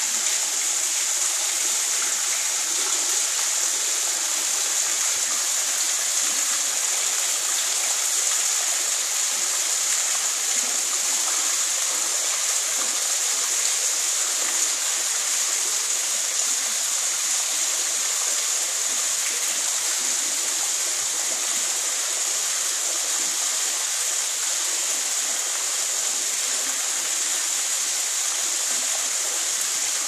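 Thin waterfall pouring off a rock overhang and splashing into a shallow pool: a steady, unbroken hiss of falling water.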